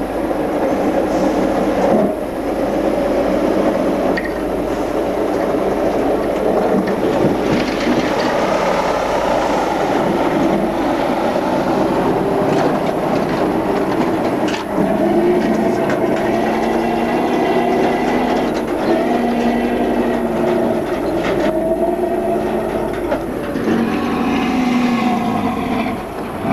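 Air-cooled Tatra diesel truck engines working hard as the heavy 8x8 and 6x6 trucks climb and descend steep dirt banks: a continuous heavy engine sound with rattle, the engine note rising and falling near the end.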